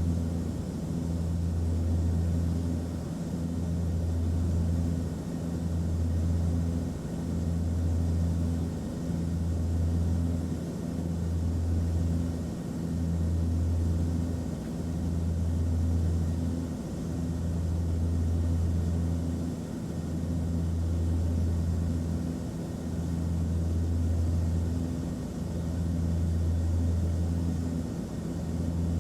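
Airplane cabin noise: a steady, low drone of engines and airflow. A deep hum under it swells and dips every second or two.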